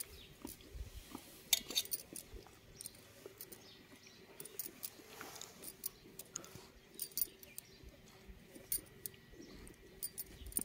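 Sheep being hand-milked: short, irregular squirts of milk hitting a metal pail, with light clinks.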